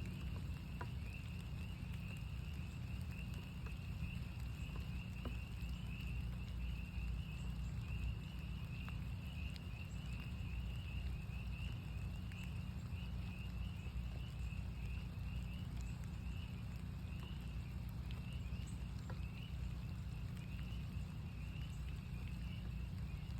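A chorus of northern spring peepers, many high peeping calls overlapping into a continuous shrill band, over the steady hiss and scattered pattering drops of rain.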